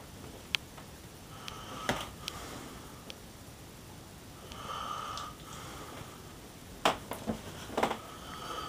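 A sleeping man's breathing between snores, with a wheezy, faintly whistling breath a little past the middle and another near the end. A few short, sharp clicks come and go in between.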